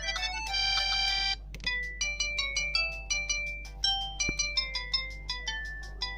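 ZTE G S315 mobile phone playing its built-in ringtones: a dense chiming tune stops about one and a half seconds in, and a quick melody of short separate notes, three to four a second, follows.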